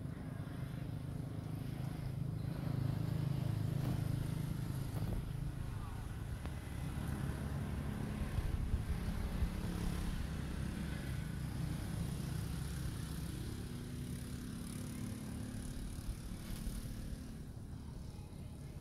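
Low, steady engine hum of passing motor vehicles, swelling and fading a few times.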